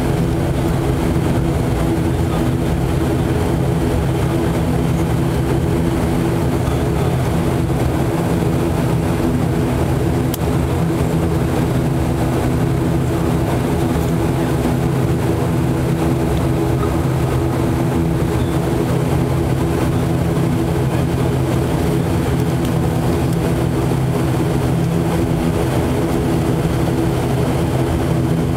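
Cabin noise inside an ATR 72-500 turboprop taxiing after landing. Its Pratt & Whitney PW127-series engines and propellers give a steady drone with several steady low tones.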